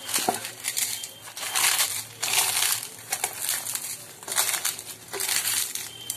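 Crushed fuchka puris mixed by hand with chickpeas, chopped vegetables and tamarind water in a steel bowl: a crunching, crumbling sound in repeated strokes, roughly one a second.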